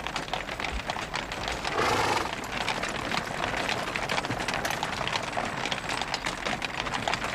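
A horse-drawn cart moving along, with the horse's hooves clip-clopping and the wooden cart clattering in a dense run of knocks.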